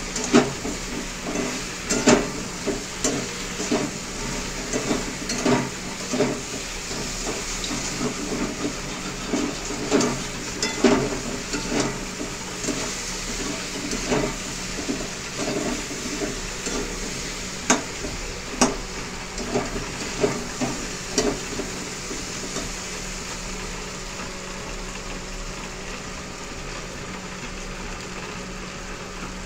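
Boiled potato chunks frying in oil in a metal karahi, sizzling steadily, while a metal spatula scrapes and clinks against the pan with each stir. The strokes come less often in the last several seconds.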